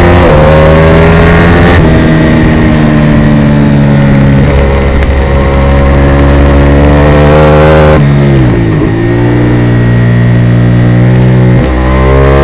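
Ducati 848 EVO race bike's L-twin engine at full throttle, very loud, with the pitch climbing and stepping down on upshifts about two and four and a half seconds in. About eight seconds in the revs fall away steeply as the throttle closes, and near the end there is another quick dip and pick-up of the revs.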